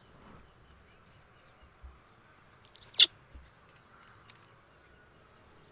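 A single short, high-pitched animal call about three seconds in, sliding steeply down in pitch, followed a second later by a faint brief chirp.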